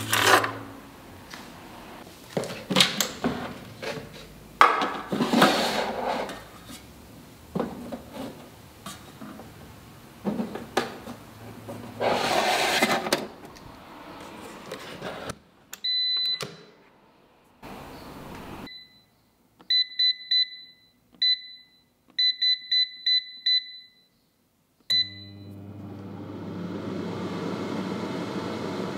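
A steel baking tray and the mesh racks of a digital countertop oven clatter and scrape as the tray is handled and loaded. After that come a string of short, high beeps from the oven's touch panel as the timer is set, and about 25 seconds in the oven's fan starts with a steady hum.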